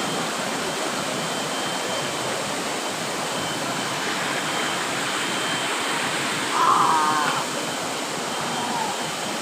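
Waterfall pouring steadily, a constant rush of falling water. About two-thirds of the way through, a brief wavering call from a person's voice rises over it.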